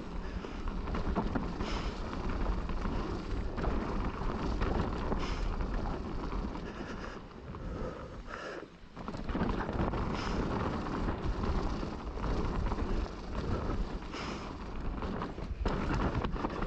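Wind buffeting the camera microphone over the rumble and clatter of a mountain bike rolling down a rough dirt trail, dipping briefly about halfway through.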